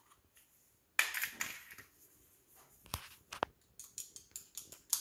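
Small plastic chemical vial being handled and opened by gloved hands: a brief rustle about a second in, then a scatter of small clicks and light knocks.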